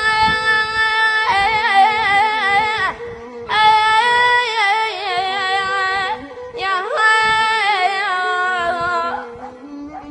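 Child singing a sad Iraqi song unaccompanied, drawing out three long wordless phrases in a high voice with vibrato and melismatic turns, with short breaths between them.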